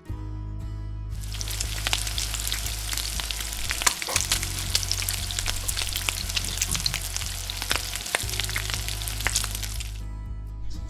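An egg frying in hot oil in a miniature metal wok, sizzling and crackling with many sharp pops. The sizzle starts suddenly about a second in and stops near the end.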